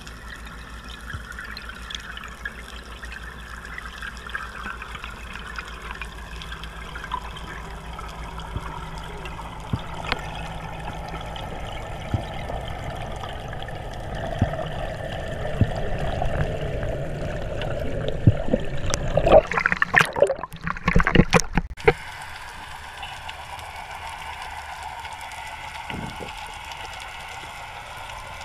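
Underwater sound picked up by a camera in its housing: a steady rush of water, with a loud crackling burst of bubbles lasting a couple of seconds a little past the middle.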